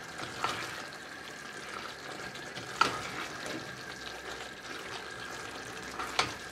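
Wooden spatula stirring a mushroom stew in a stainless steel pot over a low sizzle, knocking against the pot three times, the loudest about three seconds in.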